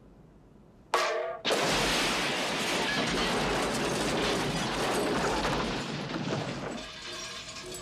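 Movie car-crash stunt audio: a sudden loud crash about a second in, then several seconds of dense, loud crash and skid noise that eases off near the end.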